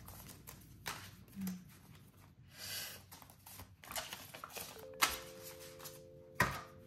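Polymer banknotes being handled and counted by hand: crisp rustles and flicks of the plastic notes, with a few sharp clicks, the loudest about five seconds in and again a little later.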